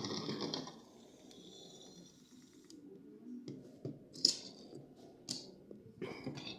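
Packaging and small plastic toy pieces being handled: a rustle at the start, then scattered light clicks and taps.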